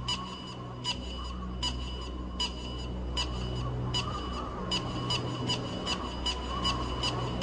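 Electronic instrumental music: held low bass notes under a regular pulse of short, high synth notes. The pulse quickens about two thirds of the way in.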